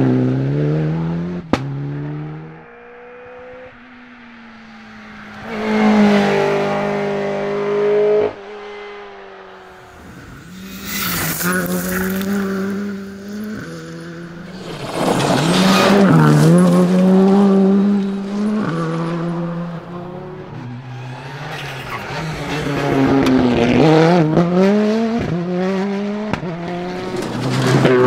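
Rally cars passing one after another at speed on gravel stages. The first is a Mitsubishi Lancer Evolution pulling away. Each engine revs high and drops in pitch in steps at gear changes or lifts, rising again as the next car approaches, with tyre and gravel noise.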